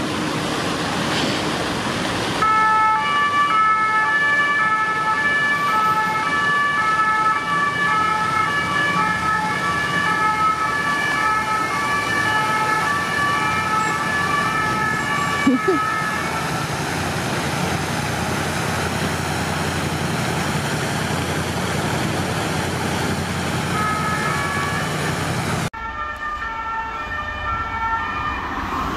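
French police two-tone siren alternating steadily between two notes as a police car drives past with blue lights on. It fades away about halfway through, leaving road traffic noise, and comes back fainter near the end.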